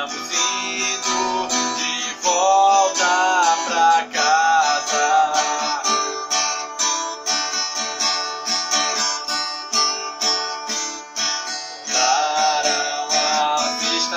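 Acoustic guitar strummed steadily in an instrumental passage between sung verses.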